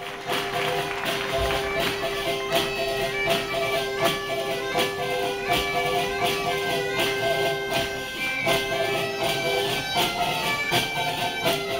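A traditional folk ensemble playing a bagpipe tune, with a steady drone under the chanter's melody, and many hand-held tambourine frame drums (panderetas) beating a regular rhythm.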